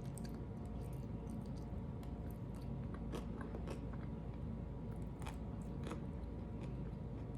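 A person chewing an air-fried pickle, with scattered small crunches and mouth clicks over a steady low hum.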